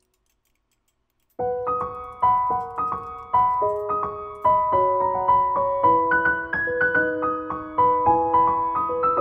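Silence for about a second and a half, then background music starts: a light piano tune of quick separate notes.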